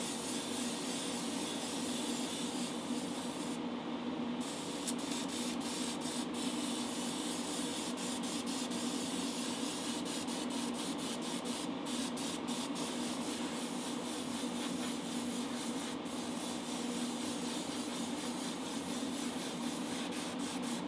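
Airbrush spraying silver paint onto a diecast car body: a continuous hiss of air and paint, dropping out briefly a few times where the trigger is eased off, over a steady low hum.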